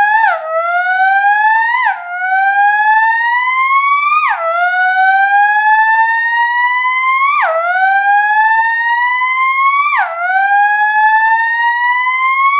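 Moog Etherwave Plus theremin, heard through an amplifier and speaker, imitating a racing car engine. Its pitch climbs steadily, then drops sharply, like a car upshifting through the gears, five times.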